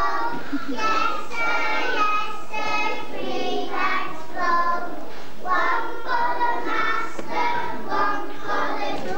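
Group of young children singing together in unison, a steady run of held notes and short syllables.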